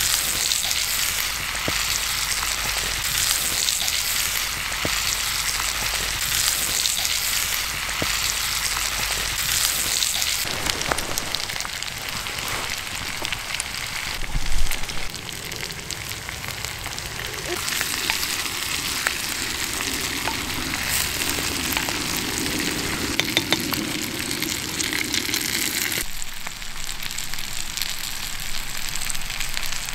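Bacon, onion and potato frying in a cast iron Dutch oven over a campfire: a steady sizzle with small pops and crackles. One louder knock about halfway through.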